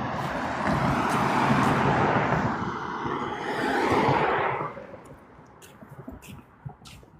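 A road vehicle passing by: a rush of tyre and engine noise that swells and then dies away about four and a half seconds in.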